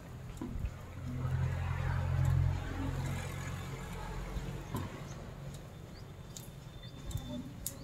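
Low engine rumble that swells about a second in and fades by about four seconds, like a passing motor vehicle, with scattered light clicks and taps.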